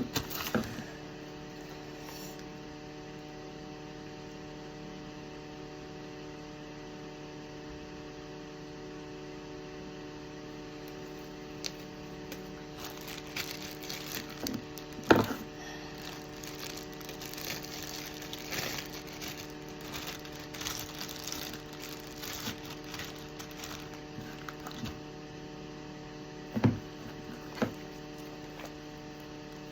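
Steady electrical hum, with scattered small clicks and crackles of handling and two louder sharp knocks, about halfway and near the end.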